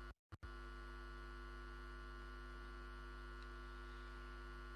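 Steady electrical mains hum in the audio feed, with a brief cut to total silence just after the start.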